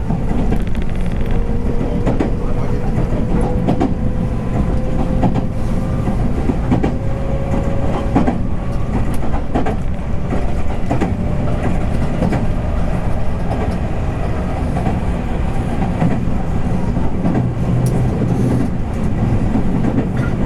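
Running noise inside a JR West 221 series electric train's motor car: a steady rumble of wheels on rail with scattered rail-joint clicks. For the first several seconds a thin traction-motor whine climbs slowly in pitch as the train gathers speed, then it fades out.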